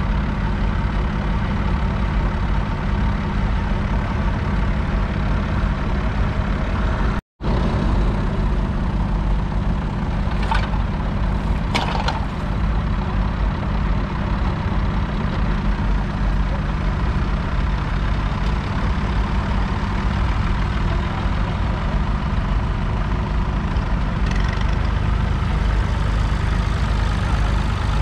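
Massey Ferguson 135's 2.5-litre three-cylinder diesel engine running steadily at an even speed. The sound cuts out completely for a split second about seven seconds in.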